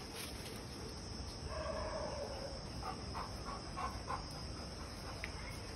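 Faint animal calls: one drawn-out call about a second and a half in, then a quick run of five short notes a second or so later, over a steady high-pitched hum.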